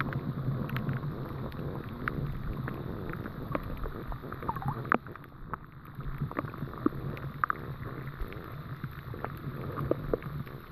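Muffled sound picked up by a camera under shallow water: a low steady rumble with many sharp clicks and crackles scattered through it.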